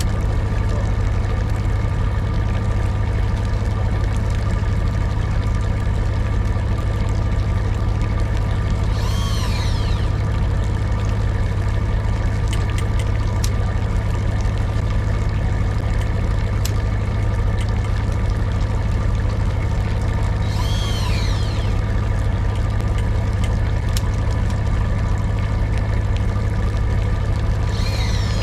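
Boat engine running steadily at a constant drone. A short high squeal that arches in pitch cuts through it three times: about nine seconds in, about twenty-one seconds in, and near the end.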